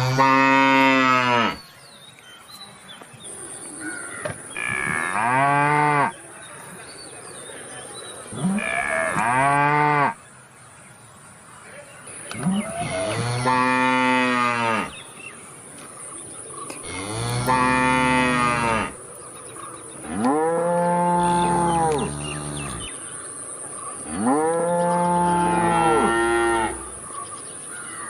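Cow mooing repeatedly: about seven long, drawn-out moos, each rising and then falling in pitch, with a few seconds between them.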